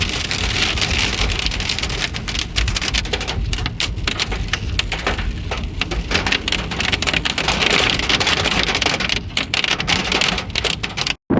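Hail and rain pelting down hard: a dense, continuous clatter of many rapid impacts.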